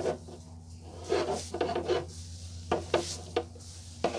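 A rigid ABS plastic trim piece being wiped with a microfiber cloth, rubbing and clacking against a hard plastic pan in a series of short knocks and scrapes. A steady low hum runs underneath.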